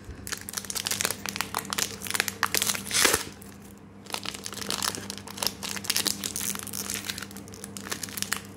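Foil Pokémon booster pack wrapper crinkling and crackling in irregular bursts as fingers pull at its crimped top seal, loudest about three seconds in. The stiff seal resists tearing open.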